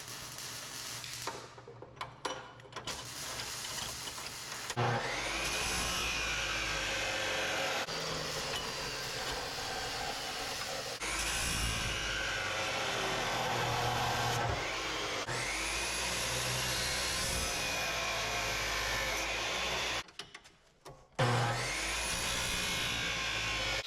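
Chop saw cutting mild steel. The motor spins up with a rising whine about four times and runs steadily through each cut. It stops briefly about 20 seconds in, after some clattering of handling the metal near the start.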